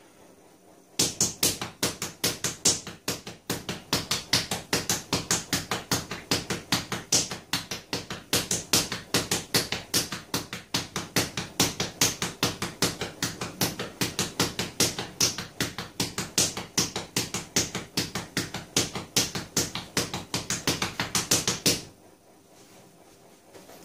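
Bare fists punching a painted wall in a fast, steady series of knocks, about four a second, starting about a second in and stopping near the end. These are knuckle-conditioning blows, struck to harden the fists.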